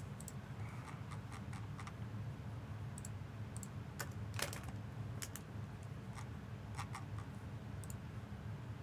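Faint, irregular clicks and light taps, a dozen or so spread unevenly, over a low steady hum.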